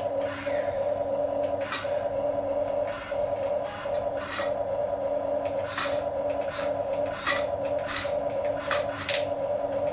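Small electric motors of an RC excavator whining steadily as the arm and bucket move, with short scraping sounds repeating every half second to a second as the bucket works into sand and dirt.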